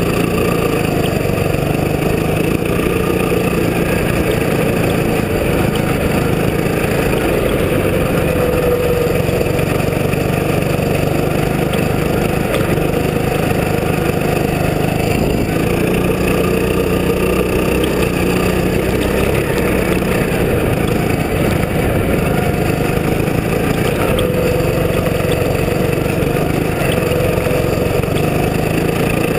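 Go-kart engine running hard along a snowy track, its pitch rising and falling with the throttle.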